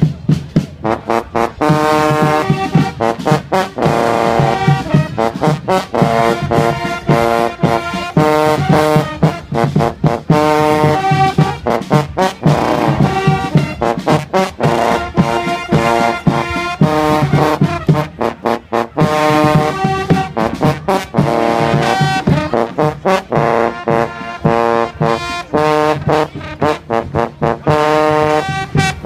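A fanfare corps of fanfare trumpets and marching drums playing a march, with loud held brass notes over a steady drumbeat.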